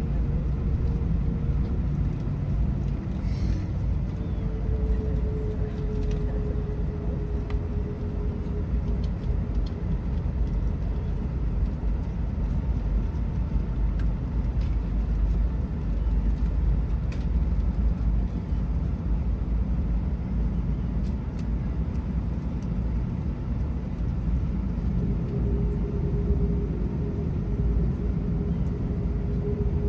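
Steady low rumble inside an Airbus A380's cabin from its Rolls-Royce Trent 900 engines, with a faint whine that sinks slightly in pitch a few seconds in and climbs again near the end.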